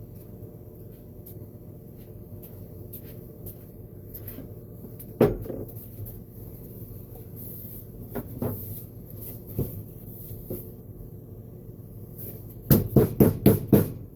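Knocks and clatter of saw motor parts being handled on a workbench during cleaning: one sharp knock, a few lighter knocks, then a quick run of about six raps near the end, over a steady low hum.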